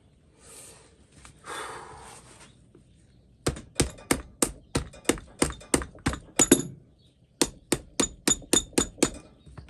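Rubber mallet tapping a metal dust-cover piece into a vintage Wilton vise through a leather pad. It strikes in quick runs of about four light blows a second: about a dozen, a brief pause, then about nine more.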